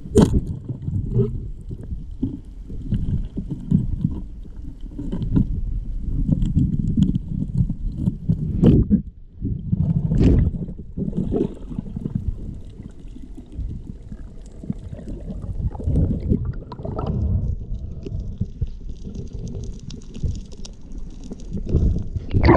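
Underwater sound picked up through a camera housing: a muffled, uneven rumble of moving water, broken by a few sharp clicks or knocks.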